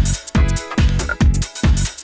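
Electronic dance music with a fast, steady kick-drum beat and deep bass.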